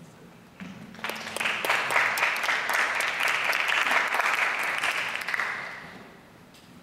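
Audience applause: hand clapping that starts about a second in, holds for about four seconds, then fades out.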